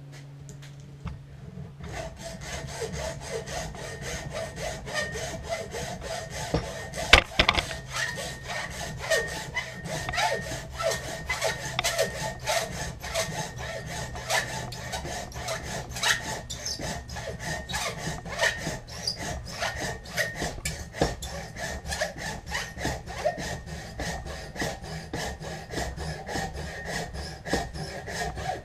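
Handsaw cutting through antler held in a vise, in steady back-and-forth strokes that start about two seconds in. There is one louder knock about seven seconds in.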